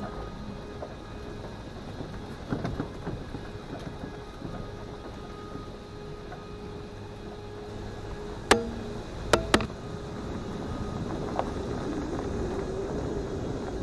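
Toyota 4Runner driving a back road, a steady low rumble of engine and tyres. A few small rattles come early, then three sharp knocks in quick succession past the middle, like the body jolting over bumps.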